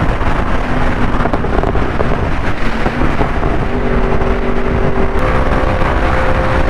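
Heavy wind rush over the microphone at highway speed, with the 2023 Yamaha R1's crossplane inline-four running steadily underneath, its pitch stepping slightly a few times.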